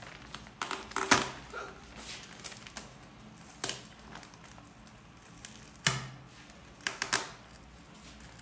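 Plastic mailer bag crinkling as packing tape is picked at and peeled off it by hand: a handful of short, sharp crackles and rustles, about a second in, near four seconds, near six and around seven seconds.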